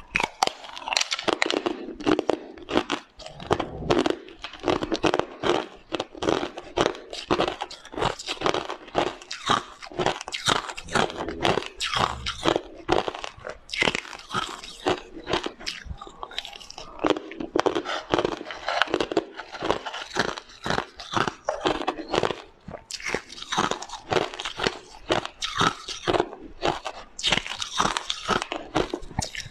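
Frozen ice being bitten and chewed close to the microphone: a dense run of sharp crunches and crackles, without pause.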